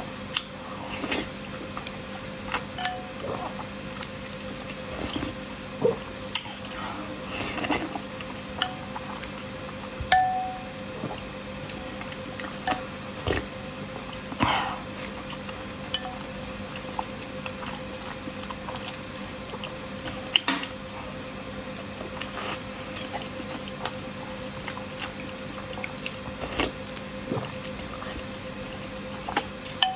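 Close-miked eating of boiled eggs in chili-oil sauce: bites, chewing and mouth sounds, with chopsticks and a metal spoon clicking against the bowl now and then, over a faint steady hum.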